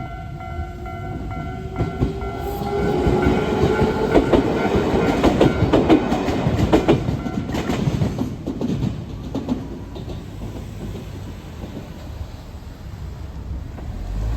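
Enshu Railway 2000-series electric train (set 2006F) passing a level crossing: wheels clacking over the rail joints with a rising motor whine as it goes by, loudest in the middle. The crossing's electronic warning bell rings steadily over it and stops about eight seconds in.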